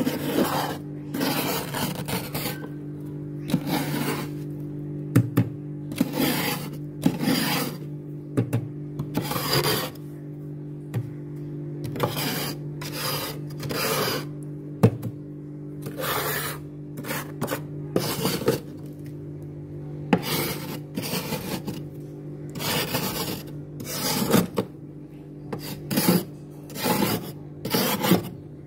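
A big metal spoon scrapes thick frost and ice from a freezer's walls in short scraping strokes, about one a second and unevenly spaced. A steady low hum runs underneath.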